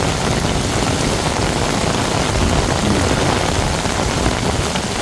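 Heavy rain pouring onto a flooded street, a steady, even hiss.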